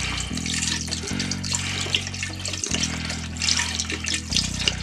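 Chicken broth poured in a steady stream from a carton into the liquid already in an electric pressure cooker's inner pot, a continuous splashing trickle. Low held tones sit underneath, shifting pitch every second or so.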